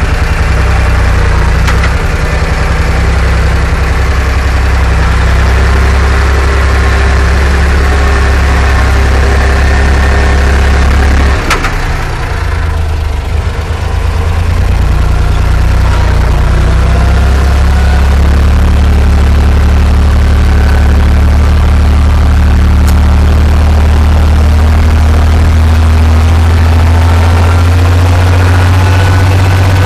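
Torpedo 45 tractor engine running steadily under load, heard from inside the cab, as it pulls a two-furrow plough through dry soil. A sharp click comes about a third of the way in, and the sound dips briefly for a couple of seconds before the steady running resumes.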